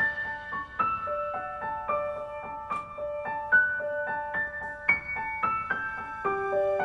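Background music: a gentle keyboard melody of short single notes, several a second, over a repeating lower note.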